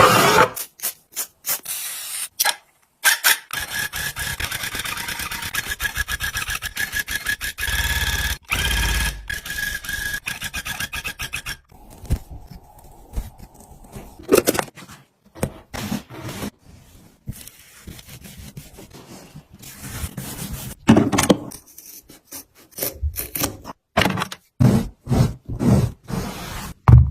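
Rubbing and scraping strokes on a carpet being worked by hand: a fast, dense run of strokes for several seconds, then slower, separate strokes.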